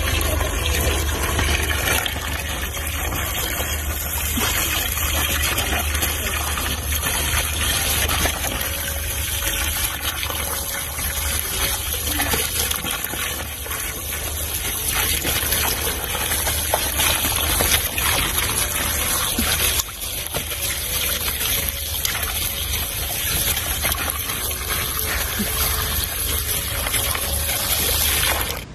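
A stream of water pouring steadily into a plastic tub of water, splashing and churning as otters play in it.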